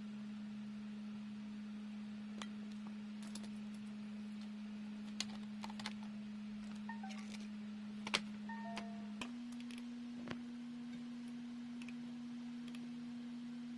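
Laptop running with a steady low hum that steps slightly higher in pitch about nine seconds in, with scattered light clicks like keys or touchpad buttons and a few brief faint tones.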